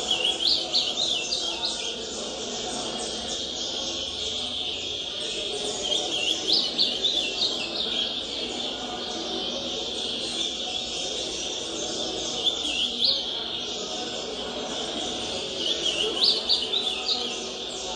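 Captive ultramarine grosbeak (azulão) singing short warbled phrases, four of them about every four to six seconds, close to twelve songs a minute. Under them runs steady bird-tournament noise played from a TV, a background of other birds and voices.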